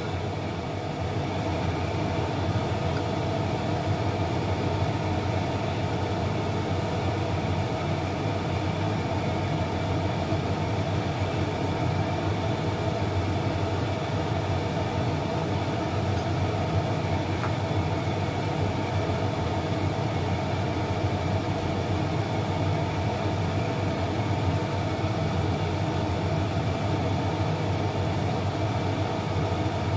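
Steady mechanical hum of a kitchen fan running, with several held tones over a soft whirr and no change in speed.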